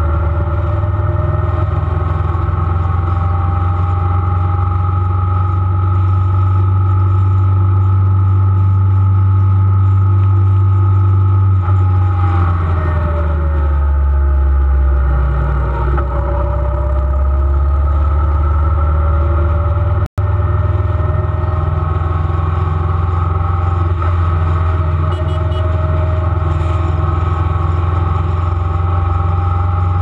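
Motorcycle engine running at road speed under heavy wind rush. The engine pitch sinks as it slows about 12 seconds in, then climbs again as it speeds back up. The sound cuts out for an instant about 20 seconds in.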